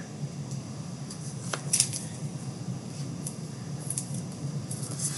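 Faint clicks and light rustles of trading cards being handled and flipped through, with a few sharp ticks scattered through it, over a steady low hum.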